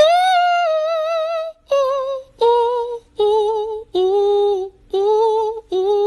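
A high, clear melody of held notes with a strong vibrato: one long wavering note, then six shorter notes that step down in pitch and level off.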